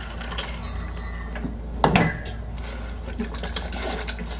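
Kitchen handling noise as drink cups are handled: faint clatter with one sharp knock about two seconds in, over a steady low hum.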